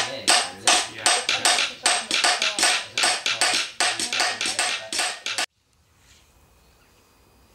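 Hammers peening scythe blades, a fast run of metallic clinks, about four a second, with a ringing tone. It cuts off suddenly about five and a half seconds in, leaving faint outdoor background.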